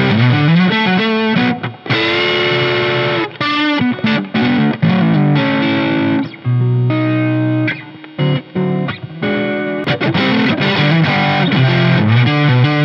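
A 1978 Tokai Springy Sound ST-42 Stratocaster-style electric guitar played through a Fender Deluxe Reverb amp with pedals: single notes with rising string bends, a chord held for about a second and a half from about two seconds in, then short clipped notes with brief gaps and a busier phrase near the end.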